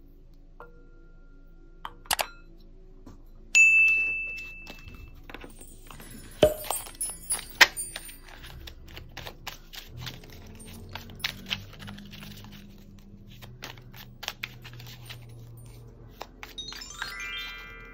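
A small bell rings once, clear and fading over about a second and a half, over soft background music. A long run of light, irregular clicks and taps follows, like small hard objects being handled, and near the end there is a quick ripple of chime notes.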